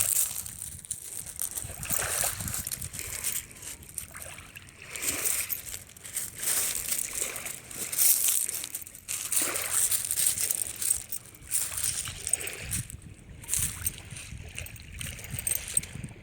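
Shallow beach water sloshing and splashing in irregular surges every second or two.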